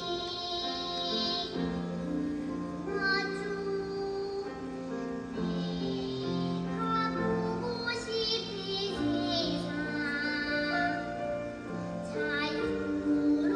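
Children's choir singing with accompaniment, long held notes changing every second or two.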